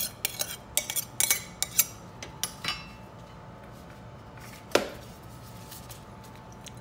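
Ceramic plate and bowl clinking and knocking as a silicone spatula scrapes tomato sauce off the plate into the bowl. A quick run of clinks for the first two seconds, a few more after, then one louder knock about two-thirds of the way through.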